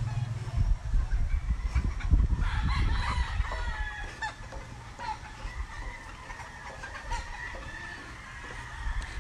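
Tethered gamefowl roosters crowing and clucking, several calls overlapping from about two to four seconds in, then fainter calls.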